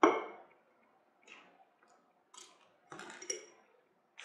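Metal spoon knocking and scraping against a plastic tub and a glass jar while scooping powdered cornstarch. There is one sharp knock at the start, then scattered light clicks and scrapes.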